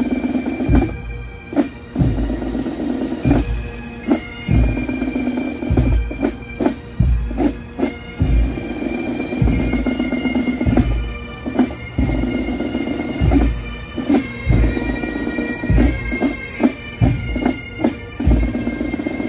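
Bagpipes playing a slow tune over their steady drones, with drum beats about once a second.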